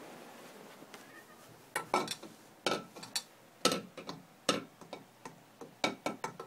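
A run of sharp, irregular clicks and taps, several a second, starting a little under two seconds in, some with a short ring after them.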